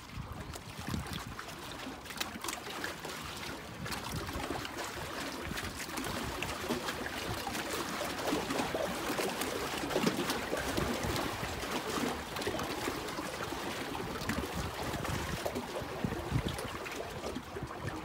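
Small waves lapping and splashing against a wooden jetty's pilings, with wind buffeting the microphone in irregular low rumbles.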